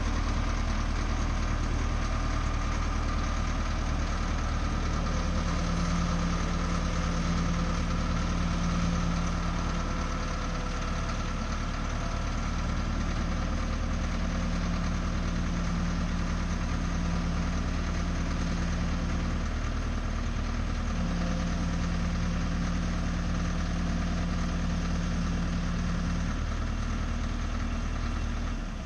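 Diesel locomotive engine idling: a steady low rumble, with a hum that comes and goes in the middle.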